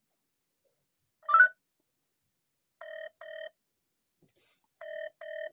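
Phone ringback tone from a phone's speaker: two short beeps in quick succession, a pause, then the same pair again, the double-ring pattern of an outgoing call still waiting to be answered. About a second in, a brief louder chirp with a rising pitch comes first.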